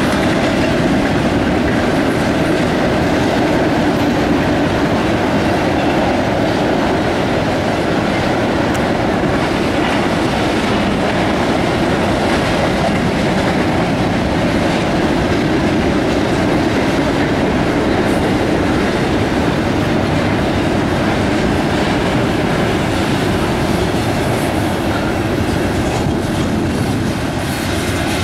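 Double-stack intermodal freight cars of a CSX train rolling past steadily, their wheels clattering and rumbling on the rails.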